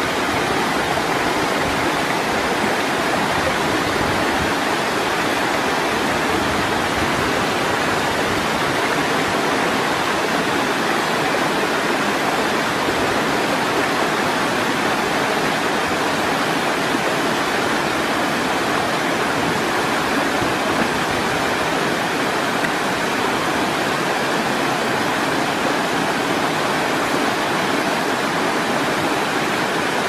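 Waterfall rushing: a loud, steady wash of water noise that does not change.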